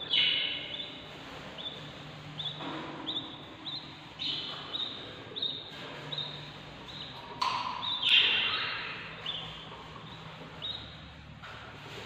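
Baby budgerigar chicks peeping in the nest box, the begging calls of hungry chicks: a string of short, high, falling peeps several times a second, with louder bursts of calling at the start and again about eight seconds in.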